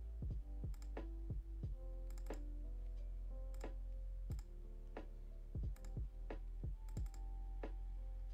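Background music: short pitched notes over a steady low drone, with sharp clicks roughly once a second, some in quick pairs.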